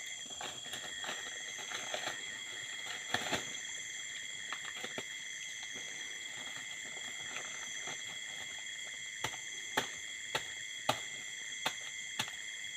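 Steady high-pitched trilling of night insects. Scattered short clicks and rustles come from handling in the tree, more of them near the end.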